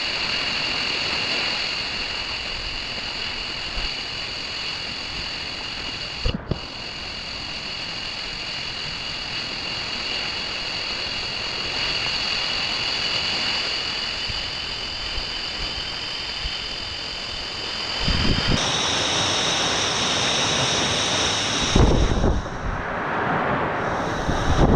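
Waterfall pouring steadily, a continuous rushing roar with strong hiss of falling spray. A short knock about six seconds in, and from the last quarter on, low buffeting of wind on the microphone.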